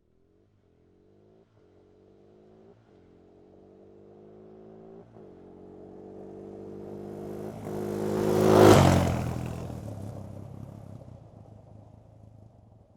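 A quad bike (ATV) engine drives past. It approaches and gets louder while its note climbs, breaks and climbs again several times, then passes close about nine seconds in with a drop in pitch and fades away.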